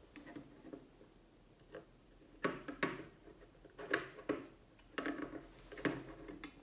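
Screwdriver and small screw clicking and tapping against the Jetson Orin Nano carrier board as the M.2 SSD is screwed down in its slot: a string of short, sharp clicks, the louder ones from about halfway through.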